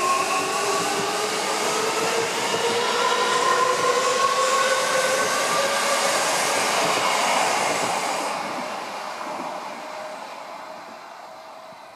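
Odakyu electric commuter train passing at speed: its inverter motor drive whines in several tones that climb together in pitch as it accelerates, over the rush of wheels on rail. The sound fades away from about eight seconds in.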